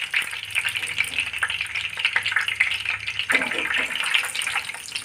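Hot oil sizzling and crackling around curry leaves in a frying pan as they are scooped out with a perforated skimmer; the leaves are nearly crisp.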